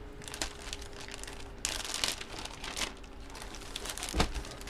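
A jersey's packaging wrapper crinkling and rustling in irregular bursts as it is handled, loudest about two seconds in. A sharp knock comes near the end.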